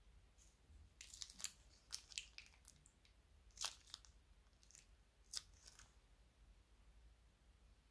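Thin plastic pouch crinkling and crackling in the fingers as its yellow liquid is squeezed out. The crackles are faint and sparse: a cluster about a second in, then single sharper ones.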